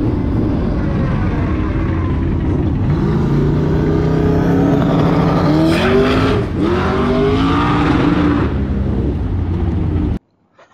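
A combustion engine running with a steady low rumble, revving up in several rising pulls between about three and eight seconds in. The sound cuts off abruptly shortly before the end.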